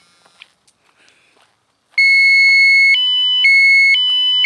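Thermo Scientific RadEye B20 survey meter's alarm: loud electronic beeping that switches between a lower and a higher tone about every half second. It stops, falls silent for about two seconds, then starts again. The alarm sounds as the gamma dose rate reads about 0.23 µSv/h, above 0.2 µSv/h.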